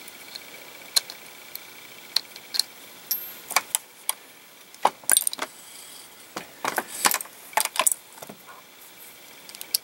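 Scattered sharp metallic clicks and clinks of a 9mm Luger brass case and reloading-press parts as the case is set into the press's shell plate and run through the resizing station, busiest in the middle. A faint steady high whine sits underneath.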